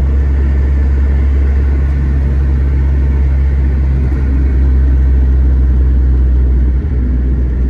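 Car's engine and road noise heard from inside the cabin while driving at speed on a highway, a steady low drone with no break.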